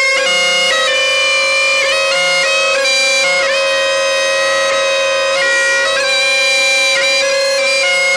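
Bagpipes playing a tune: a steady drone under the chanter's melody, which moves between held notes and quick grace-note flicks.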